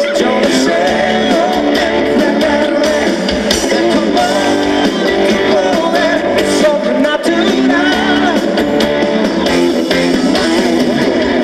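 Live band music with strummed guitars and drums, and voices singing over it.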